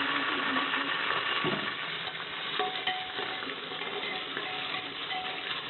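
Cumin, bay leaves and whole spices sizzling in hot oil in a pressure cooker, stirred with a spoon, with a steady frying hiss. A light clink of the spoon on the pot about three seconds in.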